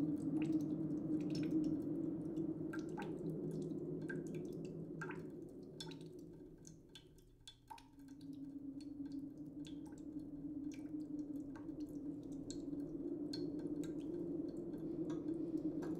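Wet shaving-cream sounds: small squishing clicks and drips, scattered irregularly over a steady low hum. The hum fades away about halfway through and then comes back.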